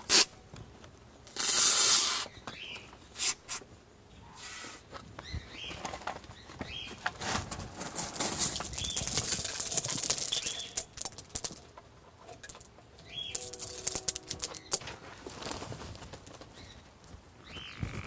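Small river pebbles and stones being handled and set around an underwater pond light fixture: scattered clicks of stone on stone and rustling. There is a louder rustling burst about one and a half seconds in and a longer rustling stretch in the middle.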